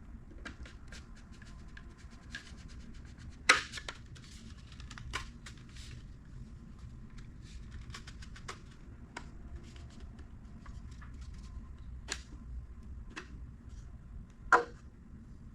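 Light, irregular clicks and taps of 3D-printed plastic whistle parts being handled and fitted together, with a few sharper clicks, the loudest about three and a half seconds in and another near the end.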